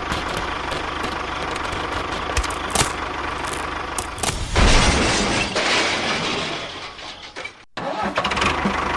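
A small motor running steadily with scattered clicks. About halfway a loud rushing noise lasts about two seconds, then the sound fades and cuts out briefly near the end.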